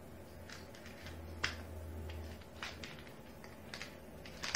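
Fingers picking at and peeling the tight inner seal of a plastic supplement bottle: a few faint, scattered clicks and crackles.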